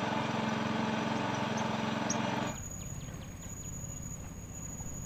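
A small engine running steadily, cut off abruptly about two and a half seconds in. After that, insects chirr with one steady high tone and a few faint chirps.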